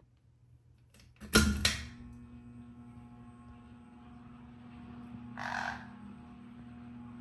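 Ceiling fan switched on: two loud clicks about a second in, then the fan motor's steady hum begins and holds as it starts up. A short raspy sound comes about five and a half seconds in.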